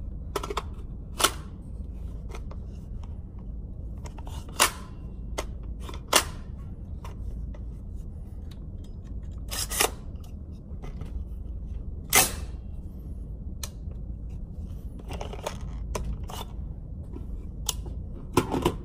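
Sharp metallic clicks and clacks, a few seconds apart, from hands working a 10.5-inch 5.56 AR-15 pistol: Magpul magazines pushed and slapped into a magazine well that will not accept them. A steady low hum runs underneath.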